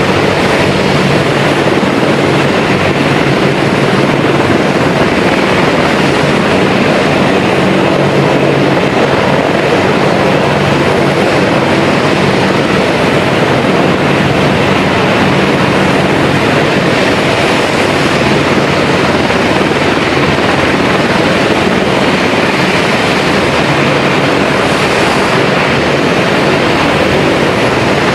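Several AH-64 Apache attack helicopters running on the ground with rotors turning: a loud, steady mix of turboshaft engine noise and rotor noise, with a low steady hum underneath.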